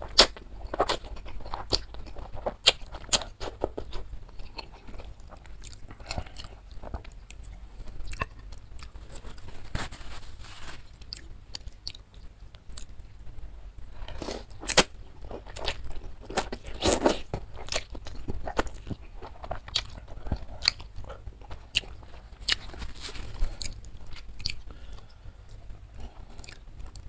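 Close-miked eating of instant noodles in spicy broth: noodles slurped in and chewed, with many small wet mouth clicks. Two longer, louder slurps come past the middle.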